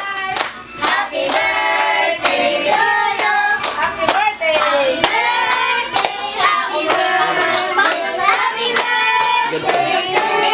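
A group of children and adults singing together while clapping their hands in time, about two to three claps a second.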